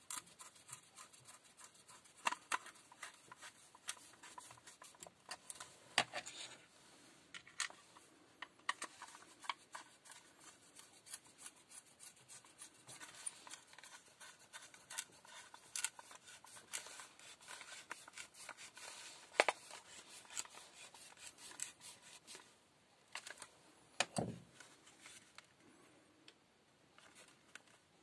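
Hand screwdriver turning screws into the red plastic housing of a Black&Decker 14.4 V cordless drill, with many small clicks, scratches and rubbing of the plastic case as it is handled. A single dull knock comes near the end.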